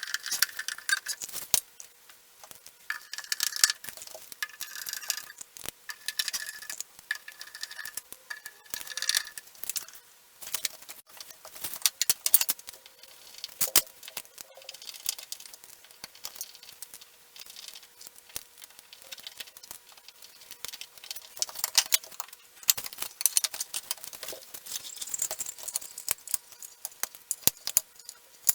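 Clicks, knocks and small rattles of flat-pack desk parts and metal hardware being handled during hand assembly, with no steady tool noise.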